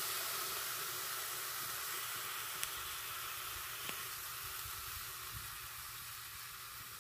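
Teriyaki-marinated tri-tip sizzling on a charcoal grill grate over hot briquettes: a steady hiss that slowly fades, with two faint pops in the middle.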